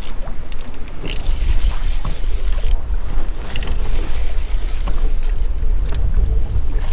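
Strong wind buffeting the microphone, a steady low rumble with gusty hiss on top.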